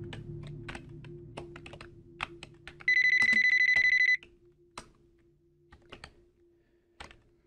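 Computer keyboard typing in irregular clicks, then a telephone's electronic ring, a rapid high trill lasting just over a second, about three seconds in. A few scattered key clicks follow.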